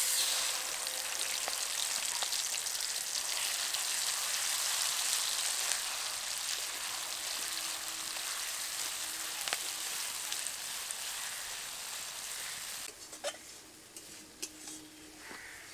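Ground mustard paste sizzling as it fries in hot mustard oil in a kadai. The sizzle is loud and even at first and drops to a quieter hiss about thirteen seconds in.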